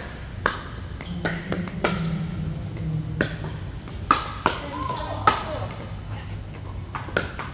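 Pickleball rally: about eight sharp pops of paddles striking the plastic ball, irregularly spaced, the three loudest coming close together near the middle. Background music and voices run underneath.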